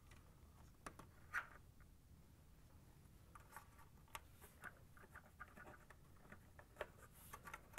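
Faint scratching and rustling of a thin ground wire being pulled through plastic hooks and holes on a washer's outer tub, with scattered light clicks, the sharpest about a second and a half in.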